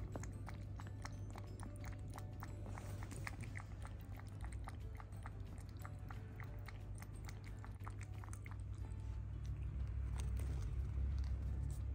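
Kitten lapping water from a ceramic bowl: quick wet clicks about four a second, thinning out near the end.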